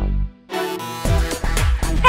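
Electronic background music. It starts muffled and cuts out almost completely for a moment about half a second in. Then the full track comes back with a steady kick-drum beat.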